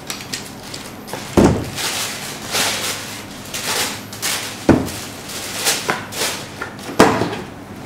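Paper wrapping rustling and crinkling as a pair of Adidas Dame 4 basketball shoes is lifted out of a shoebox. Three short knocks, about a second and a half, four and a half and seven seconds in, as the shoes are set down on the table.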